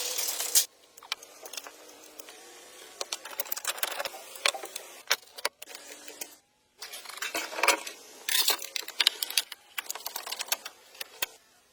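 An irregular clatter of sharp knocks, taps and clicks from hard objects being handled, broken by a sudden cut to silence about six and a half seconds in.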